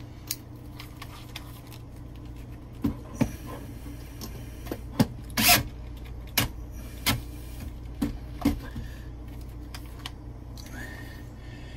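Cordless drill/driver driving in the screws that fasten an RV toilet's base to the floor: several short runs of the drill, the longest and loudest about five and a half seconds in, mixed with sharp clicks of the screws and the tool being handled. A steady low hum runs underneath.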